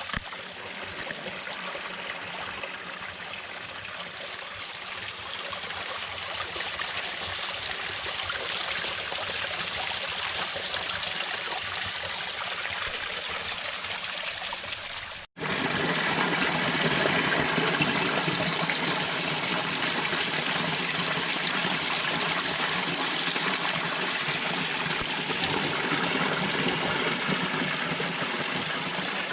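A small woodland stream trickling over stones. About halfway through it cuts out abruptly and comes back louder and fuller, a stronger rush of running water.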